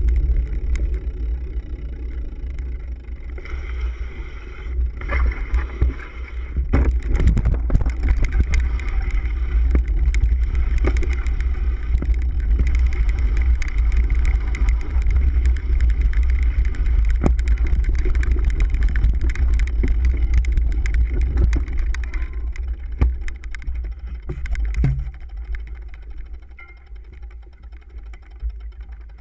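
Riding noise from a camera mounted on a cyclocross bike going over a dirt course: a steady low rumble of wind and vibration on the microphone, with the bike knocking and rattling over bumps, thickest a few seconds in. It grows quieter near the end.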